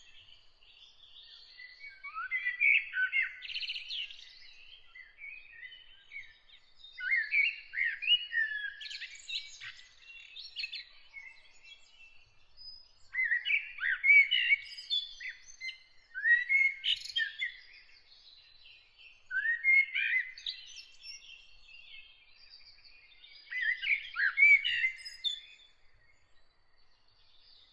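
A songbird singing a run of short, varied warbling phrases, each a second or two long and repeated every few seconds. A faint steady high tone runs behind the song.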